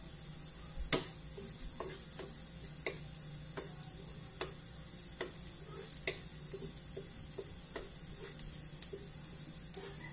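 Wooden spatula knocking and scraping against a metal wok while garlic is stirred frying in oil, over a faint steady sizzle. The knocks come irregularly, about one or two a second, the loudest about a second in.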